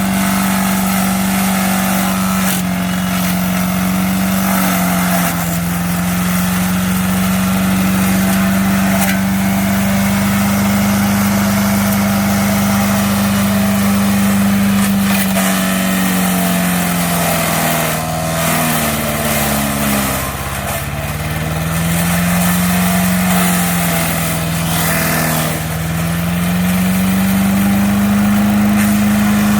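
MTD wood chipper-shredder's 5 hp engine running steadily, its pitch sagging several times, most deeply about two-thirds through, as branches fed into it load it down, then recovering. Scattered knocks and clatters of wood going through the chipper.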